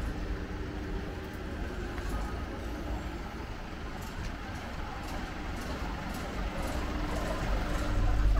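Street traffic: a motor vehicle's engine running close by as a steady low rumble, growing louder near the end.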